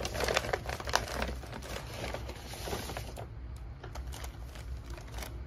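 Paper bakery bag and tissue wrapper crinkling and rustling as they are opened by hand, with a dense run of sharp crackles for about three seconds, then only a few scattered crackles.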